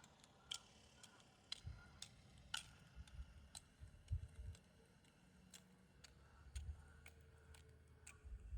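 Near silence with faint, sharp clicks recurring about twice a second and a few soft low thumps.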